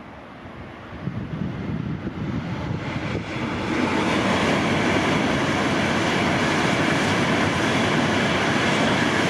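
W7-series Shinkansen trainset passing at speed: a rushing noise that swells from about a second in and runs loud and steady from about four seconds in.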